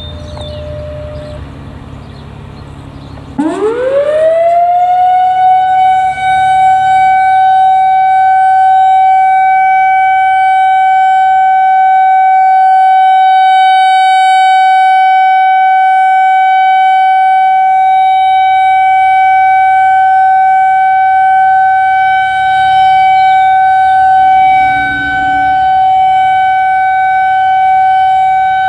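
Whelen 2000R/400R outdoor warning siren starting about three seconds in, its pitch sweeping quickly up, then holding one loud steady tone with overtones, sounded as a scheduled siren test. Its level dips briefly a couple of times near the end.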